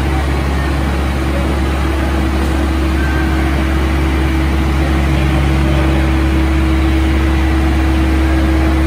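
Diesel engine idling steadily at a constant speed: a low drone with a steady hum above it, from the trailer's running refrigeration unit or the tractor hitched to it.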